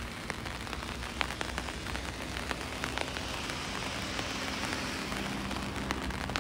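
Light rain falling, a steady patter with many separate drop ticks close by. A faint low hum runs underneath from about two and a half seconds in.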